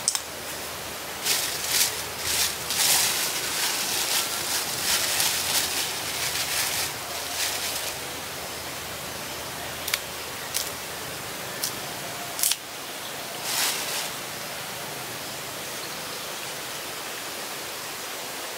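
Plastic bag crinkling and rustling in bursts for several seconds as a bunch of bananas is pulled out of it. Later come a few short sharp snaps and clicks, all over a steady hiss.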